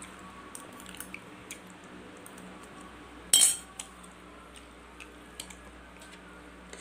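Metal knife and fork clicking and scraping against a plate while cutting fried beef meatballs, with light ticks throughout and one louder clatter a little over three seconds in.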